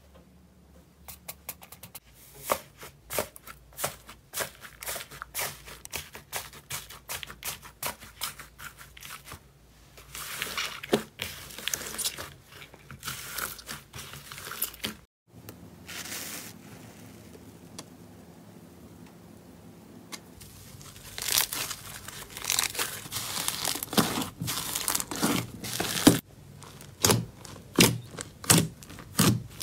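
Hands squeezing and pressing slime, making quick runs of small sticky crackling and popping clicks. There is a brief break about halfway, a quieter stretch after it, and louder pops near the end.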